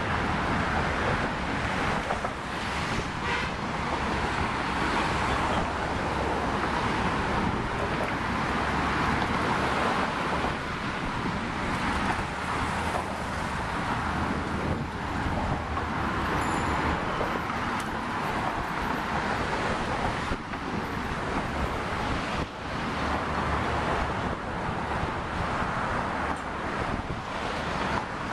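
Steady road-traffic noise from cars on the bridge roadway, with wind rumbling on the microphone.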